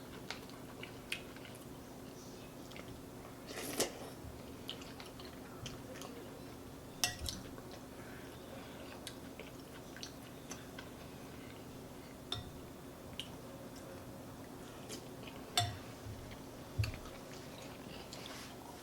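A person eating chicken noodle soup close to the microphone: quiet chewing with a handful of short, sharp mouth smacks and taps scattered through.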